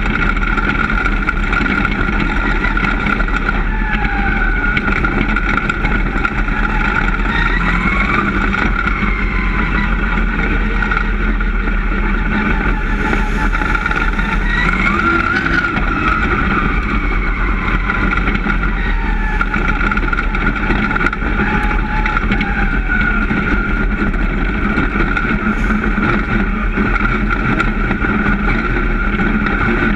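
Dirt-track race car's engine heard from inside the cockpit, running hard and loud, its pitch rising and falling repeatedly as the throttle opens and lifts around the oval.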